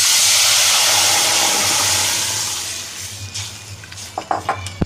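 Milk poured into hot ghee-roasted semolina hisses and sizzles loudly, beginning suddenly and dying away after about three seconds. Then a ladle makes a few short knocks and clicks against the steel pot, with one sharp knock near the end.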